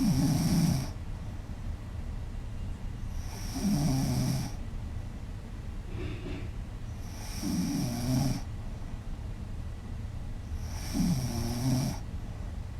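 A woman snoring loudly in sleep, one rough snore lasting about a second every three and a half seconds.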